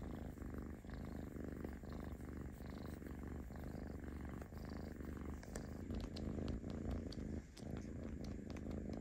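Domestic kitten purring steadily and close up while it is scratched under the chin, the contented purr of a relaxed cat. A few faint clicks come in the second half.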